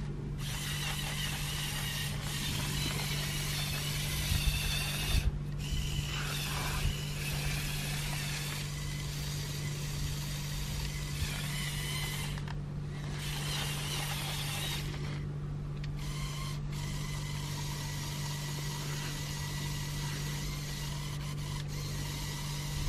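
Electric motors and plastic gear trains of a remote-controlled Lego Technic 42030 Volvo L350F wheel loader whirring steadily as it drives and works its bucket, with brief pauses where the motors stop.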